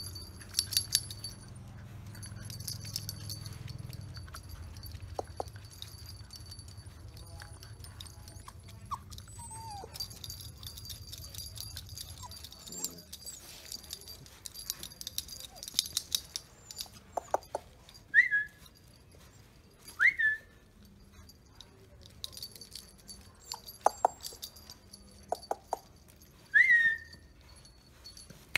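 Rottweiler puppies about six weeks old giving several short, high yips, mostly in the second half, among scattered small clicks and rustles.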